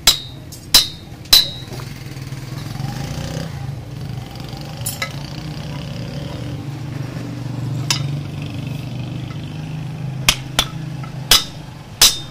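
Hand hammer striking a red-hot axe head on an anvil, ringing metal-on-metal blows, to reshape and sharpen the heated edge: three quick blows, a pause of several seconds filled with a steady low hum, then the blows resume near the end.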